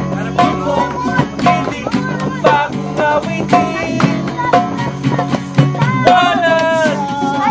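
Acoustic guitar strummed live in a steady rhythm, about two strums a second, with a man singing a melody over it.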